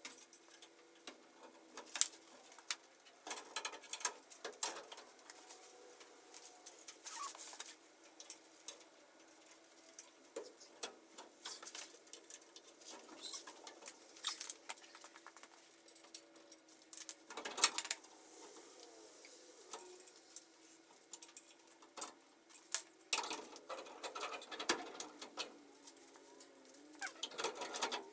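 Scattered light clinks, taps and knocks of hand work on an aluminium bench frame, coming in short clusters, over a faint steady hum.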